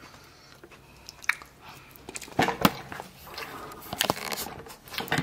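A person chewing and biting food, with a few sharp clicks and knocks scattered through, loudest about two and a half seconds in.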